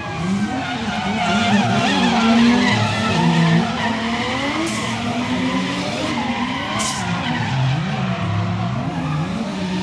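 Two drift cars sliding in tandem: their engines rev up and down hard over the squeal and scrub of skidding tyres. Two short, sharp hisses cut through about five and seven seconds in.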